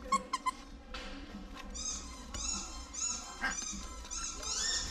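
Squeaker inside a plush dog toy squeezed over and over: a few short clicks, then a run of about seven short, high-pitched squeaks.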